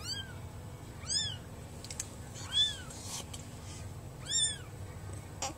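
Newborn kitten mewing: four short, high-pitched mews, each rising and falling in pitch, spaced a second or more apart. These are the isolation cries of a neonatal kitten lying outside the nest.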